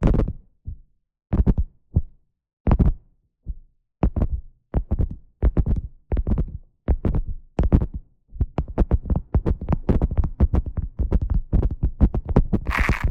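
Beeswax food wrap crinkled and pressed close to the microphone, in separate handling sounds with deep thumpy bodies. They come faster and run together from about eight seconds in. Near the end a steady scratchy brushing begins, a silicone brush rubbed on the microphone.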